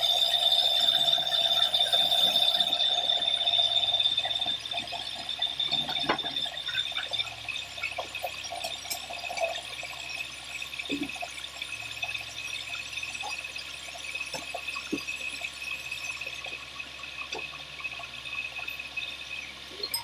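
Band sawmill running with a steady high-pitched whine, loud for the first few seconds and then quieter, with a few scattered knocks of wood being handled.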